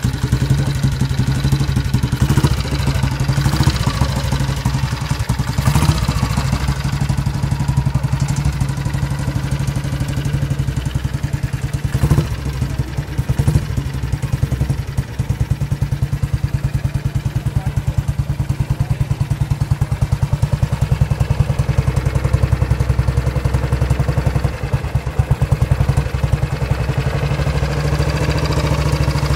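AJS single-cylinder motorcycle engine running with an even, pulsing beat, with a few short throttle blips in the first dozen seconds.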